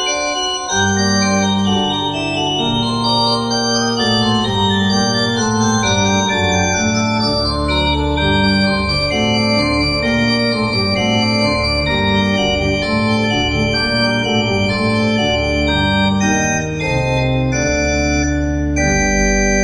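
Instrumental music of held, organ-like keyboard chords over a moving bass line.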